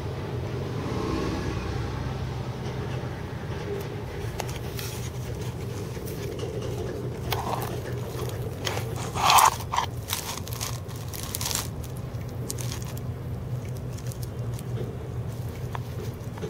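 Dry grass and twigs rustling and crackling close to the microphone in a cluster of short clicks, the loudest about nine and a half seconds in, over a steady low hum of background traffic.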